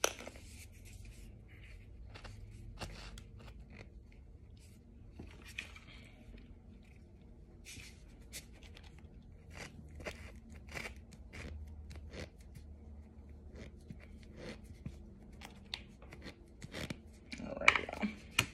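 Plastic squeeze bottle being handled and squeezed over a powdery chunk: scattered faint clicks and crackles, with a louder cluster of handling clatter near the end.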